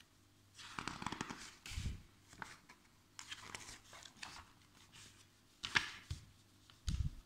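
Paper pages of a glossy magazine rustling in several bursts as it is leafed open and pressed flat by hand, ending with a soft thump near the end.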